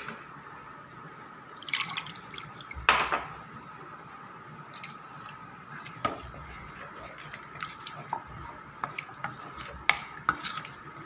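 Hot water being added to a pan of ground curry masala and stirred in: two short splashy scrapes in the first few seconds, then scattered light clinks of the spoon against the pan.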